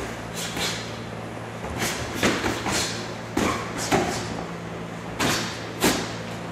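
Boxing gloves smacking against gloves, arms and padded headgear during fast sparring: about ten sharp slaps at an uneven pace, some in quick pairs.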